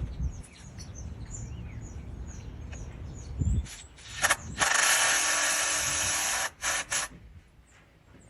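Cordless drill/driver turning a fairing screw: a couple of short bursts, then a steady run of about two seconds, then two short bursts.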